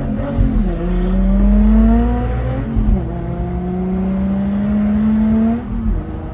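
Car engine heard from inside the cabin, accelerating hard through the gears: its pitch climbs steadily, then drops sharply at each of three upshifts, over steady road noise.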